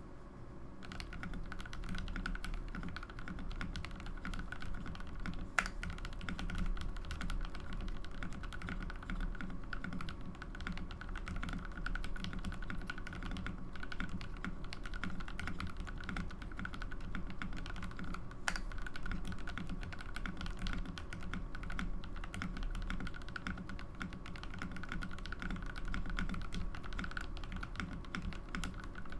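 Continuous typing on a GMMK Pro mechanical keyboard fitted with Gateron Milky Yellow linear switches (lubed with Krytox 205g0 and filmed), an FR4 plate and case foam: a steady stream of key clacks. Two sharper single clicks stand out, one about six seconds in and one past the midpoint.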